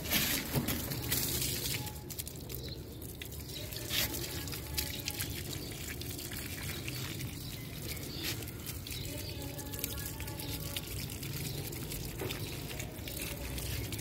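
Water from a garden hose pouring and splashing into clay flower pots full of soil and standing water, with small drips and spatters throughout.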